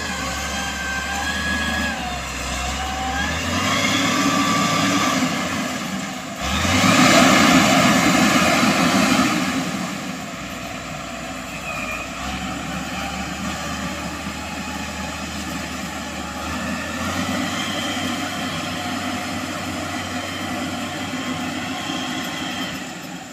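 Motor grader's diesel engine running as the machine grades a dirt road, steady throughout and swelling louder for about three seconds a quarter of the way in.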